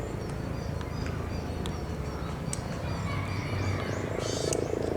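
Varied tit singing: short high whistled notes and chirps, with a brighter burst of chirping near the end, over a steady low rumble.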